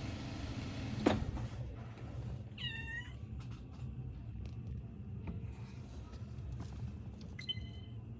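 Domestic cat meowing, one drawn-out meow about three seconds in and a shorter one near the end. A sharp knock comes about a second in, and a low steady hum runs underneath.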